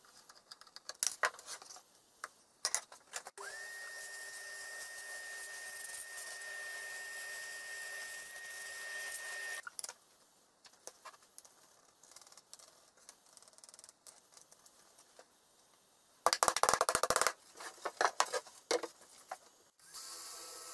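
Workshop tool handling: scattered clicks and knocks of parts and a screwdriver. About three seconds in, a small electric motor starts with a steady whine for about six seconds and cuts off sharply. Near the end comes a loud, dense scraping burst lasting about a second.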